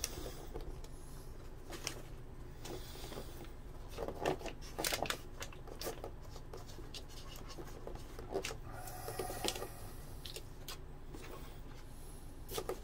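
Faint rustling and small clicks of nitrile-gloved hands pressing and smoothing resin-wetted carbon fiber cloth into a hull, over a low steady hum.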